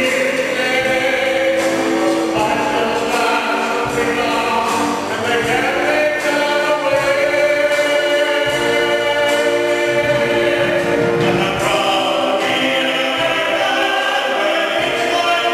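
Male tenor voices and a mixed choir singing together in sustained, held notes, with an orchestra accompanying.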